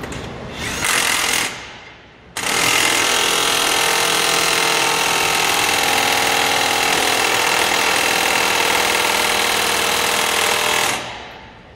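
Cordless impact wrench hammering at the front wheel hub: a short burst about a second in, then one long steady run of about eight seconds that stops just before the end.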